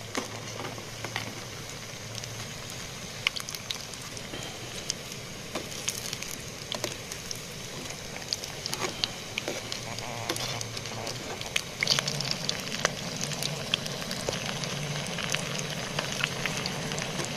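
Batata vadas (besan-battered potato balls) deep-frying in hot oil in a small pan: a steady sizzle with frequent crackles and pops.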